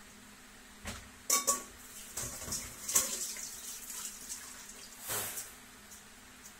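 Kitchen tap water running into the sink in short spells, with a sharp clank of a stainless steel bowl about a second in.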